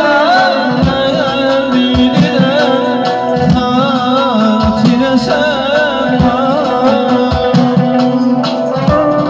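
Live amplified Azerbaijani wedding music: a man singing with wavering, ornamented notes over electric guitar and a steady drum beat, played loud through loudspeakers.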